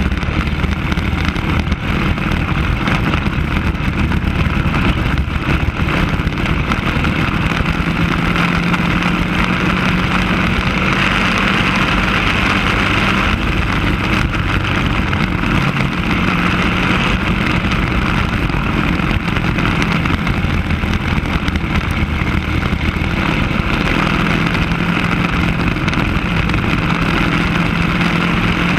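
Racing go-kart engine running at speed through the whole stretch, heard onboard the kart, its pitch holding steady in stretches and shifting between them.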